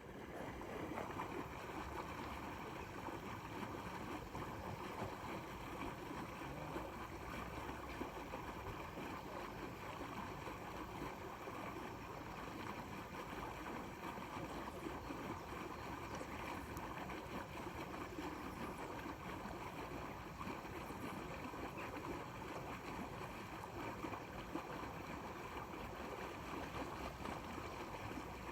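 Steady, faint outdoor background noise, an even hiss with no distinct events.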